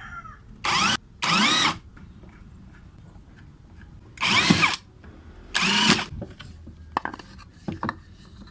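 Power drill driving screws in four short runs, its motor whine rising and falling with each run, followed by a few light clicks.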